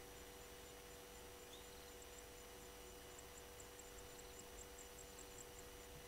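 Near silence: a steady electrical hum and hiss, with faint high-pitched ticking at about four a second that grows a little stronger in the second half.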